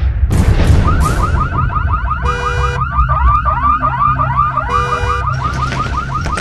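A car alarm going off: a fast, evenly repeating chirping warble, broken twice by a short honk-like tone. It starts just after a crash of something breaking.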